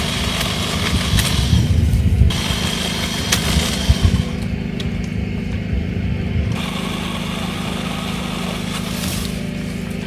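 Chainsaw running steadily and cutting branches, with a higher whine that comes and goes three times as it bites into the wood.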